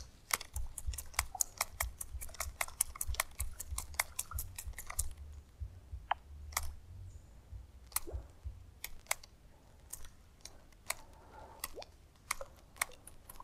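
Baitcasting reel clicking while a topwater lure is cranked and twitched back: a quick run of sharp clicks for the first five seconds, then scattered single clicks.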